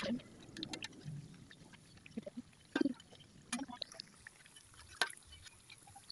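Vegetable fritters deep-frying in hot oil in a wok, the oil sizzling with scattered crackling pops. A few sharper clicks from the metal spatula against the wok as the fritters are turned.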